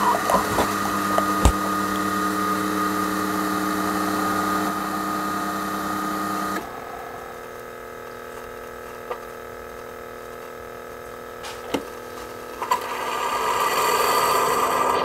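Keurig single-serve coffee maker brewing, its pump humming steadily while coffee streams into a glass mug. The hum drops to a quieter run about halfway through, and a louder hissing rush builds near the end.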